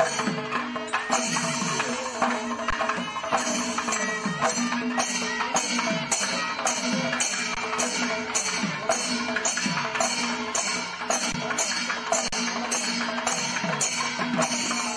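Background music of drums and other percussion, folk in style, with a steady beat of about two strokes a second.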